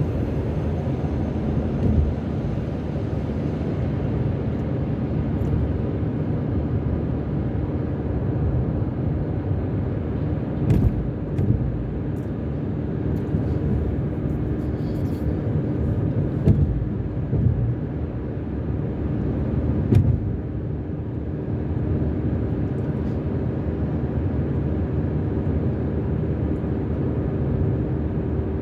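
Car driving at highway speed, heard from inside the cabin: a steady low rumble of tyres and engine with a faint steady hum, broken by a few short knocks.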